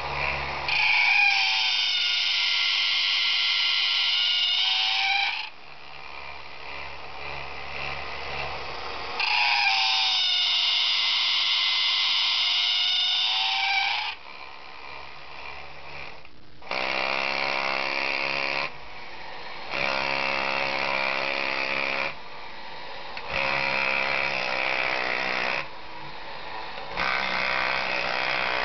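A 1950s Marx battery-operated Yeti toy giving two long, loud calls, each about four seconds, whose pitch dips and comes back up. Then its electric motor and gears whir in four short bursts of about two seconds each as it is switched on and off.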